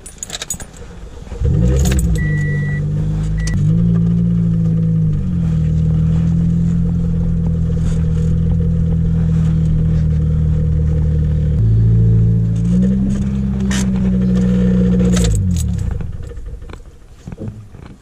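Pontiac Vibe's four-cylinder engine heard from inside the cabin, starting up about a second and a half in and running with its pitch stepping up and down several times, then dying away near the end. A short electronic chime sounds just after it starts.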